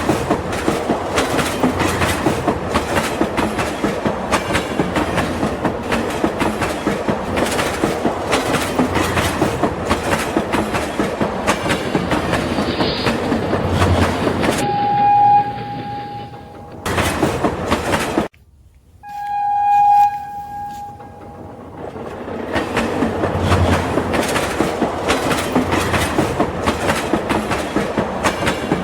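Toy train clattering along its track, with a steady horn toot in the middle and a second toot right after a brief sudden drop-out, then the clatter resumes.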